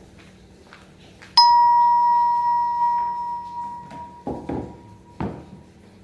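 A single clear bell-like ding that starts suddenly and rings out, fading over about two and a half seconds. Two dull knocks follow as a dining chair is handled.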